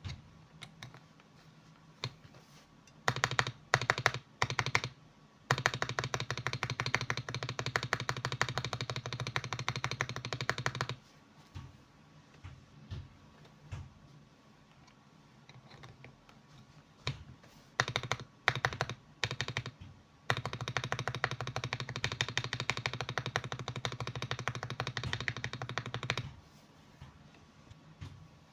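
Mechanical keyboard with lubed Akko switches being typed on: scattered single keystrokes and short clusters, then two long runs of fast, continuous typing, each lasting about five seconds.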